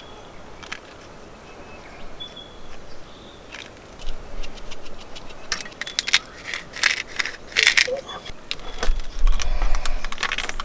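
Close-up handling of food, packaging and utensils while a wrap is put together: rustling, crinkling and light clicks that start about four seconds in and grow busier, with a few heavy bumps near the end.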